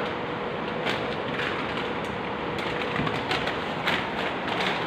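Steady indoor shop background noise, a low even hum and hiss with a few faint clicks and rustles.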